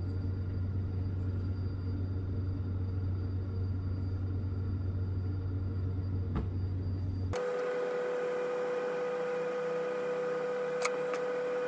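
Steady machine hum with constant tones; its pitch and character change abruptly about seven seconds in, and a couple of faint clicks come through.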